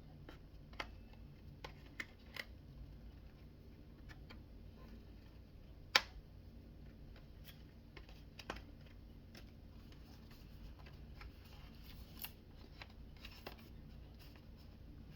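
A scattering of faint, sharp plastic clicks from a small plastic cover being taken off the underside of a mirror dash cam to reach the SD card slot. The loudest click comes about six seconds in.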